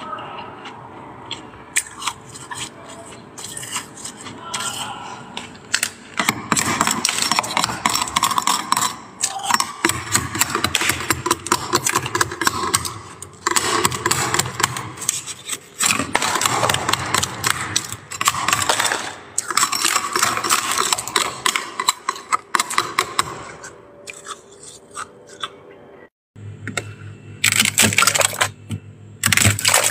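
Metal spatula scraping built-up frost off the walls of a freezer, in repeated scraping strokes a second or a few seconds long, with a break near the end before the scraping resumes.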